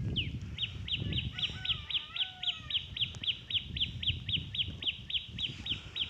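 A bird calling a fast, even run of short, high, downward-sliding notes, about four a second, over a low rumble.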